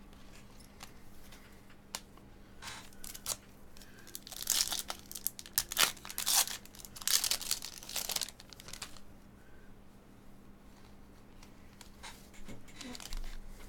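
Foil trading-card pack wrapper crinkling and tearing as it is opened by hand, in several short bursts between about four and nine seconds in, with quieter rustles and small clicks around them.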